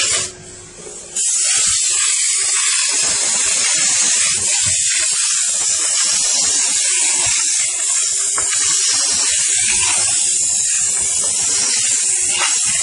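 Steam car-wash machine's nozzle spraying a loud, steady hiss of steam. It cuts off briefly about a quarter second in and comes back just over a second in.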